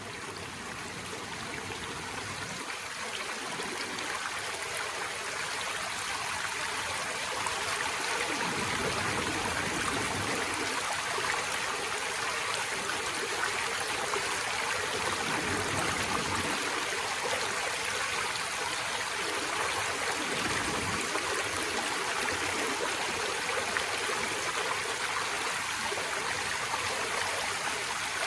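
Forest stream running over rocks: a steady rush of flowing water with trickling, fading in over the first several seconds.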